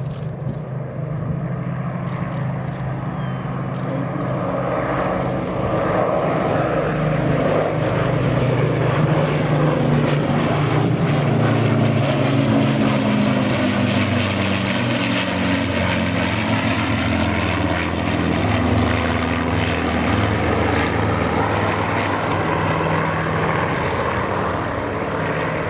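Propeller aircraft flying past. Its engine note grows louder over the first several seconds, stays strong through the middle and eases slightly near the end.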